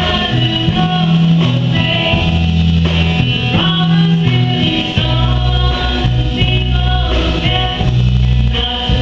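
A woman singing into a handheld microphone over backing music with a steady bass line.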